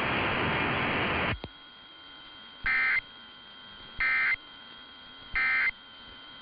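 A loud hiss cuts off abruptly a little over a second in, followed by three short screeching digital data bursts about 1.3 seconds apart: the Emergency Alert System SAME end-of-message code (NNNN sent three times), marking the end of the test message.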